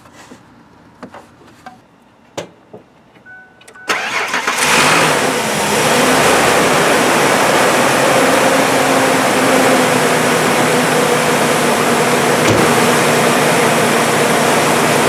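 Ford SUV's engine cranked and started about four seconds in, then running at a steady idle with its new serpentine belt fitted. A few faint clicks come before it starts.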